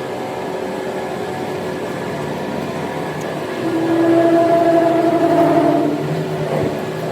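Workshop machinery running with a steady mechanical hum. About halfway through, a pitched whine swells louder for a couple of seconds, then settles back.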